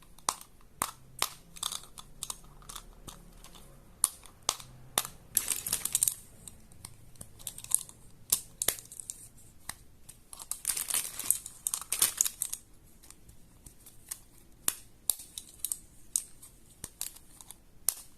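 Fidget toys being handled: a quick, irregular run of sharp pops and clicks, as when the bubbles of a silicone pop-it are pressed through, with a couple of longer stretches of crinkling or rubbing.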